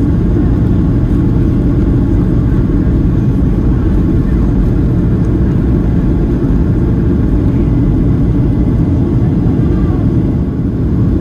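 Steady low rumble of engine and airflow noise inside the cabin of a Ryanair Boeing 737-800 in flight.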